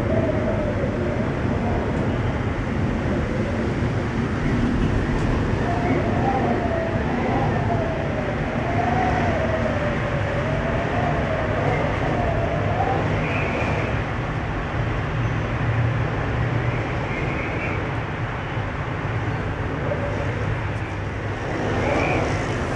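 Aerial cable car gondola in motion, heard from inside the cabin: a steady rumble and hiss, with a whine that wavers up and down in pitch for several seconds midway.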